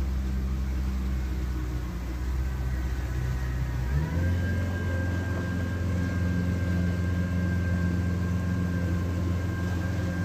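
50 hp Mercury outboard motor running steadily. About four seconds in its pitch steps up a little and holds, with a thin high whine from then on.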